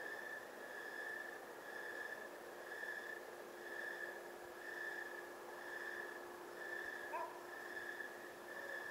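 Night insects chirping in a steady, high-pitched chorus that swells and fades about once a second, over a faint steady low hum. A brief faint squeak comes about seven seconds in.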